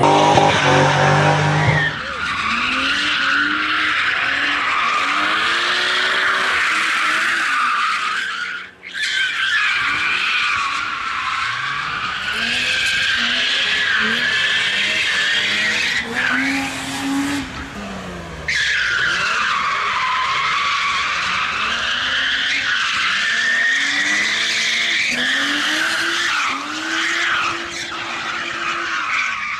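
Cars drifting: engines revving up and down under loud, wavering tyre squeal as the cars slide through corners. The sound cuts off and changes abruptly twice, about nine and eighteen seconds in.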